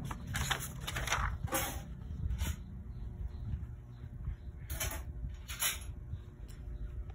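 A sheet of printer paper rustling and crinkling in several short bursts as it is handled, over a low steady rumble.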